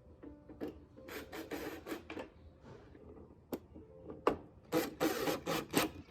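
A series of short scraping strokes with a few sharp clicks among them. The strokes are densest and loudest in the last couple of seconds.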